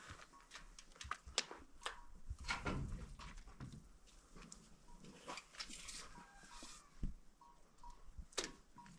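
Faint, scattered clicks, taps and scrapes of mortar being scooped from a pan and pressed by hand into the gaps around a steel window frame in a cinder-block wall.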